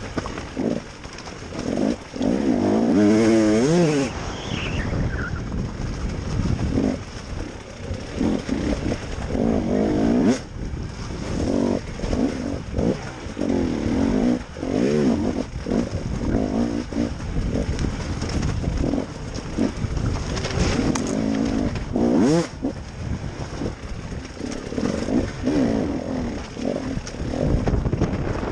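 KTM enduro motorcycle engine revving hard in repeated bursts, rising and falling with the throttle as the bike claws over loose rock. There are two sharp knocks, about ten seconds in and again about twenty-two seconds in.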